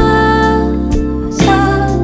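Music from a Korean-language pop love song: held chords over a steady bass, with no words heard here.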